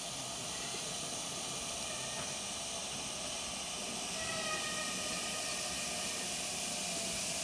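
Steam locomotive drifting slowly in towards the platform: a steady hiss of steam that grows a little louder, with faint thin squealing tones coming in about four seconds in.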